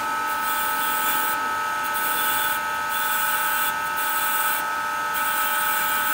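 Bench grinder fitted with a fine brass wire wheel running with a steady whine, while a small brass screw held in pliers is pressed against the spinning bristles; a hissing, scratching brush sound comes and goes as the screw touches and leaves the wheel.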